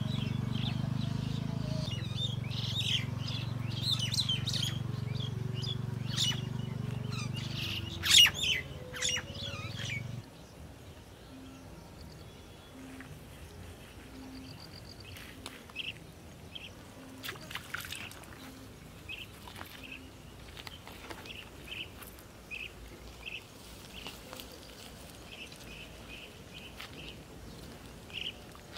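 Birds chirping and calling, with short high notes repeating throughout. A steady low hum underlies the first ten seconds and cuts off suddenly, leaving the chirps over quieter background.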